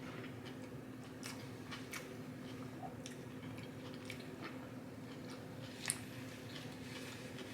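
Close-up chewing: scattered soft mouth clicks and smacks while eating, with one sharper click about six seconds in, over a steady low hum.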